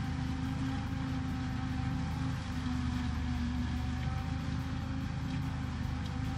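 Tractor and forage harvester engines running steadily while chopping maize, a continuous low drone.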